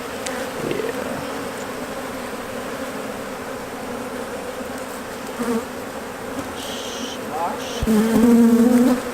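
Honeybees buzzing around an open hive, a steady hum. Near the end one buzz grows much louder for about a second.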